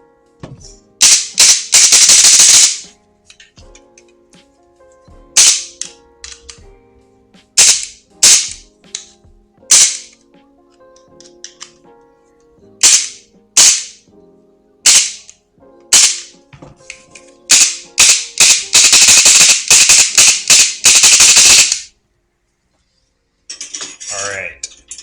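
Airsoft electric rifle (VFC MCX AEG with a brushless motor) cycling its gearbox: single shots and short bursts, with a long full-auto burst about a second in and a longer one from about three-quarters of the way through.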